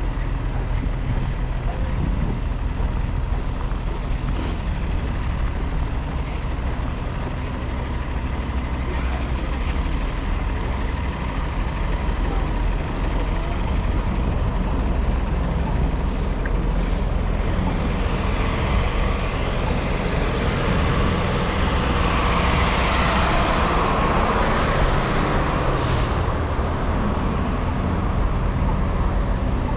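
Road traffic on a city street, with a heavy vehicle's engine running steadily. A vehicle passes more loudly about twenty seconds in.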